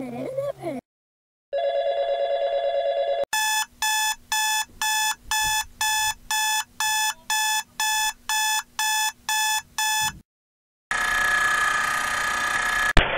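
Electronic alarm beeping about twice a second for about seven seconds: a fire station's call-out alarm sound effect. It is preceded by a short steady ringing tone, and near the end, after a brief gap, a steady noisy sound with a faint high tone comes in.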